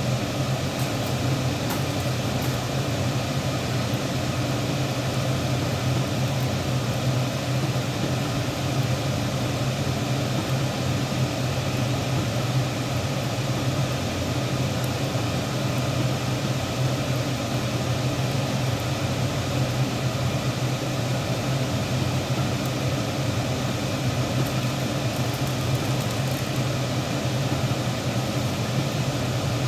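A steady low mechanical hum, like a kitchen appliance's fan, over the bubbling of tinola chicken and chayote soup at a rolling boil in a deep pan.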